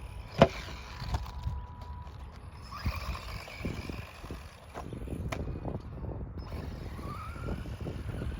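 Small electric RC cars running on dirt, their motors whining up and down, with one rising whine near the end. A sharp knock about half a second in is the loudest sound, and a few fainter knocks follow.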